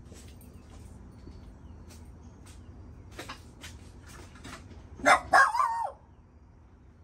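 An animal call, two loud quick calls about five seconds in, the second sliding down in pitch, over faint scattered clicks and taps.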